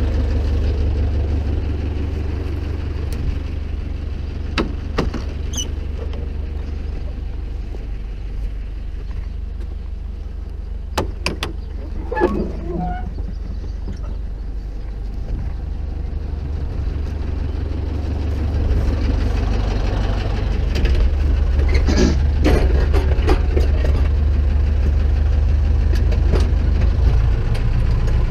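Zetor 7745 tractor's diesel engine idling steadily, a little louder from about two-thirds of the way through, with a few scattered knocks and clatters.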